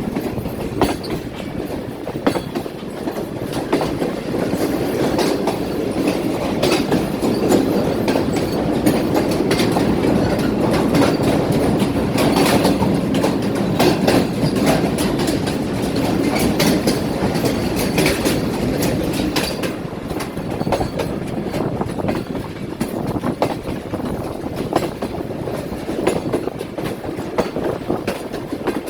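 Passenger train running on the rails: a steady rumble with frequent sharp clicks and clatters of the wheels, a little louder in the middle.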